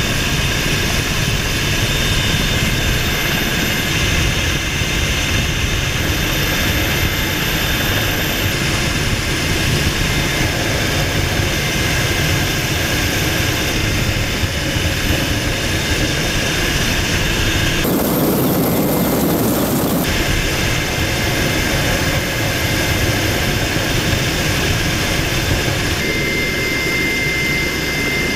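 Cabin noise of an EH101 Merlin helicopter hovering with its door open: the rotor and turbines run steadily as a loud rumble under a steady high whine. About two-thirds of the way through the noise briefly changes character for about two seconds.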